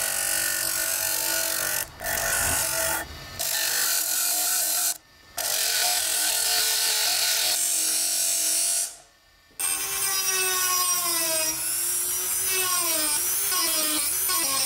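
Bench grinder spinning a small abrasive bob with a steady motor whine as a steel axe head is pressed against it, broken off briefly a few times. About ten seconds in, a handheld rotary tool takes over, its whine wavering up and down in pitch as the bit bears on the steel.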